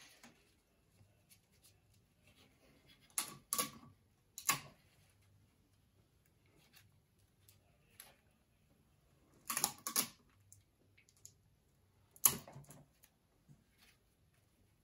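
Paper loops and a plastic drinking straw being handled and taped together on a table: a few short, sharp crinkles and taps. They come as a pair about 3 seconds in, another about 10 seconds in, and the sharpest about 12 seconds in.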